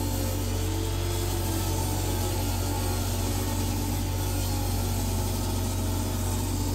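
A stationary woodworking machine's electric motor running steadily with a low, even hum, without any cutting heard.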